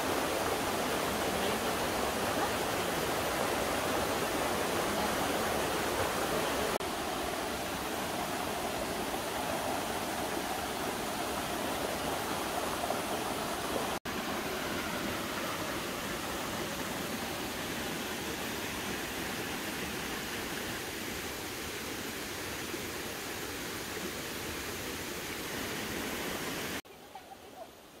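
Small waterfall cascading over rock steps into a natural pool: a steady rush of falling water, turning quieter for the last second or so.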